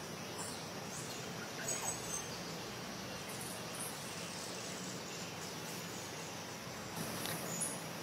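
Outdoor bird ambience: a steady background hiss with a few short, very high bird chirps about two seconds in and again near the end.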